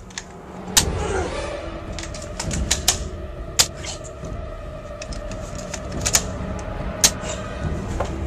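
Toy rifle firing: a run of sharp, irregular cracks, several of them roughly a second apart, as the shots hit the person in the Gumby costume.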